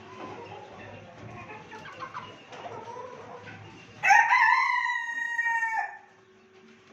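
Chickens clucking softly, then a rooster crows once about four seconds in: one loud crow close to two seconds long that breaks off sharply.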